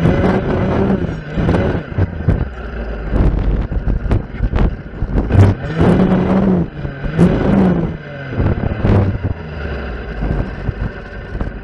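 Stihl FS 460 clearing saw's two-stroke engine revving up and down as its blade cuts through brush and small stems, with many sharp snaps and cracks as the blade strikes wood. Near the end the engine settles to a lower, steadier note.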